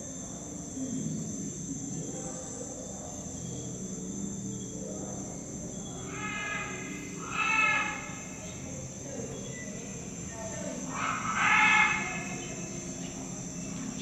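Rainforest soundscape playing in the exhibit: a steady high buzzing of insects such as crickets, with two louder animal calls, one about halfway through and another about four seconds later.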